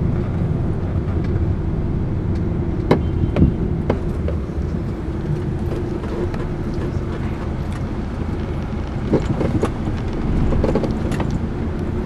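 Passenger minivan's engine and road noise heard from inside the cabin while it drives, a steady drone with a few short knocks and rattles about three to four seconds in.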